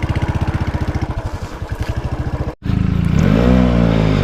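A motorcycle engine idling with an even, rapid pulsing beat. It cuts off abruptly about two and a half seconds in, and a motorcycle engine is then heard under way, its pitch rising and then dipping slightly.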